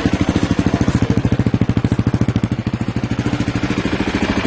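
2008 Husqvarna TE510's single-cylinder four-stroke engine idling cold, just after an electric start, with a steady, even exhaust beat.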